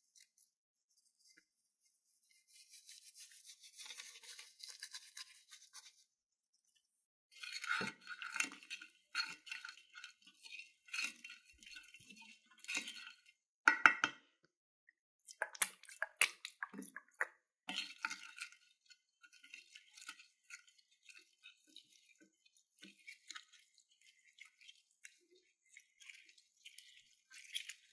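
A plastic spoon stirring and scraping a glitter-, sequin- and bead-filled slime mixture in a glass dish: wet, sticky crackles and clicks that come in irregular spells, starting about seven seconds in after a softer hissing stretch.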